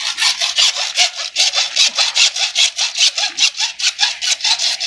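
Hand saw cutting with quick, even back-and-forth strokes, about five a second.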